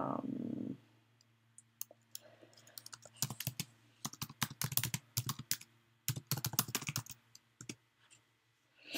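Typing on a computer keyboard: three quick runs of keystrokes, starting about three seconds in and ending a little after seven seconds in.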